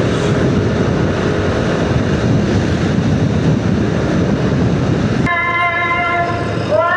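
Wind and road rumble of a motorcycle ride. About five seconds in it cuts off sharply into a steady chord of several held high tones, and near the end a gliding, singing-like melody begins.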